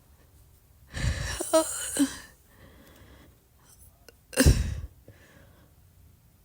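Two short throat noises from a person with R-CPD, the condition that stops them from burping. The first, about a second in, is breathy with short gurgles and lasts just over a second. The second, near four and a half seconds, starts suddenly, is shorter and louder, and is hiccup-like.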